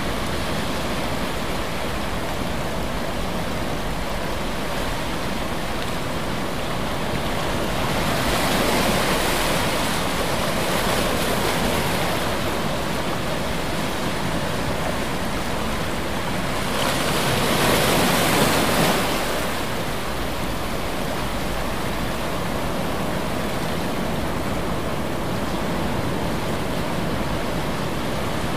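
Ocean surf: a steady wash of water noise that swells twice, once about eight seconds in and again, more strongly, about seventeen seconds in, then settles back.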